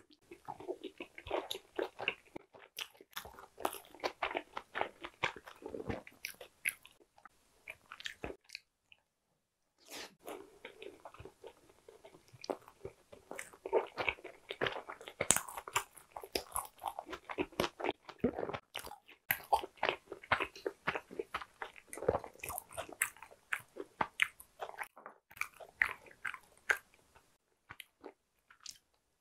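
Close-miked chewing of a mouthful of large steamed dumpling, full of small wet mouth clicks. It stops for about a second and a half about a third of the way in, then goes on.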